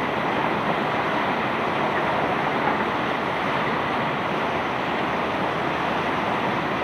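Cobblestones pouring in a continuous stream as a barge is unloaded: a steady, even rush of stone noise with no single knock standing out.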